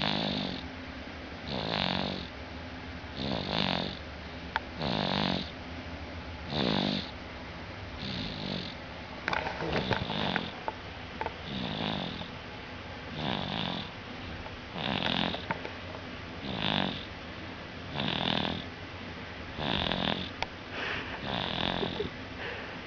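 Baby snoring through a stuffy nose, a regular snore about every second and a half.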